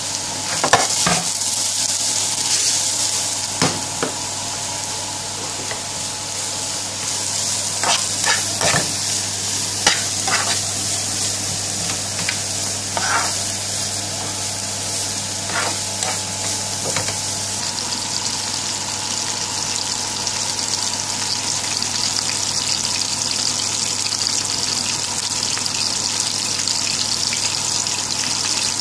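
Sliced onions sizzling steadily as they fry in oil in a frying pan, with a metal spoon scraping and knocking against the pan now and then as they are stirred.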